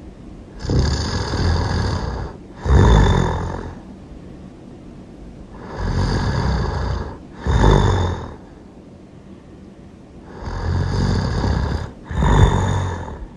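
Loud snoring in a slow, even rhythm: three snore cycles about five seconds apart, each a drawn-out snore followed by a shorter, louder one.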